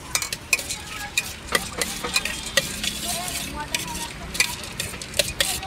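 Metal spoon stirring bhel in a steel bowl, clinking against the sides in a quick, irregular run of sharp clicks.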